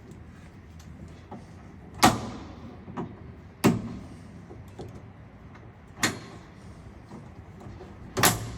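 Four sharp snaps with a few faint ticks between them as a Stanley knife cuts the plastic coating off steel drawer slide release tabs.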